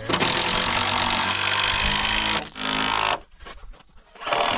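A power tool working lumber: one run of about two and a half seconds, a short second burst soon after, then a pause before it starts again near the end.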